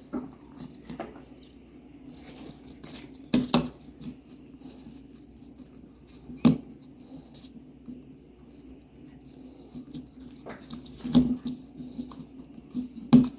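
Hands working plumber's putty around a sink drain flange: soft scrabbling and small clicks of handling, with a few sharp knocks against the sink, the loudest about three and a half and six and a half seconds in, over a steady low hum.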